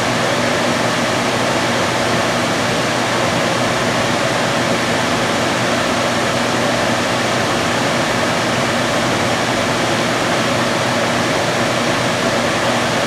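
Steady hiss of a lampworking bench torch flame fed by an oxygen concentrator, with a low steady hum under it.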